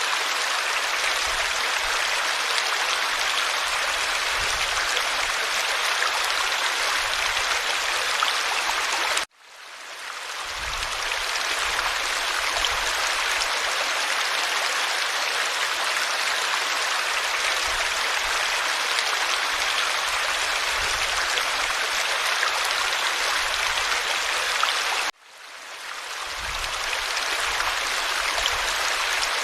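Forest stream flowing steadily. Twice the sound cuts out abruptly and fades back in over about a second.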